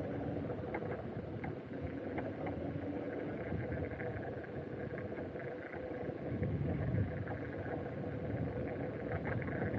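Steady road rumble from riding along a street, with wind noise on the microphone and faint scattered ticks.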